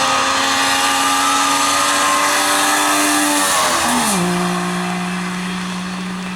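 Wartburg 353 rally car's two-stroke three-cylinder engine running hard at a steady high note. About four seconds in the pitch glides down and settles lower, and the sound slowly fades.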